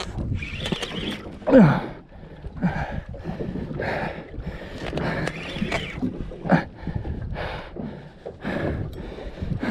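An angler straining against a big fish on a spinning reel: heavy breathing and gasps, with several short grunts that drop in pitch, the loudest about one and a half seconds in.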